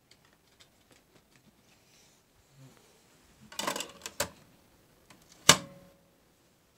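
Scattered light clicks and a short rustle of handling, then one sharp knock about five and a half seconds in that rings briefly.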